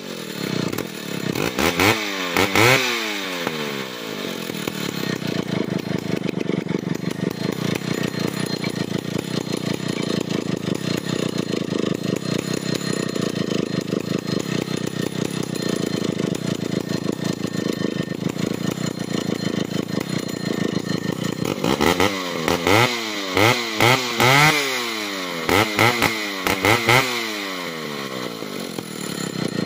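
Large Stihl two-stroke chainsaw running at idle, not cutting. Its throttle is blipped twice about two seconds in, then in a quick series of six or so revs later on, each time revving up and dropping back to idle.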